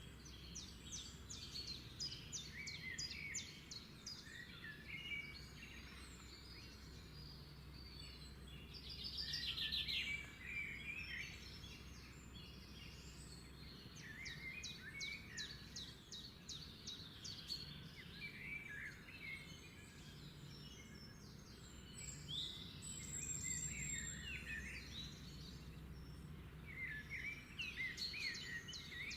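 Small songbirds singing: repeated chirps and rapid trilling phrases recurring every few seconds, over a low steady hum.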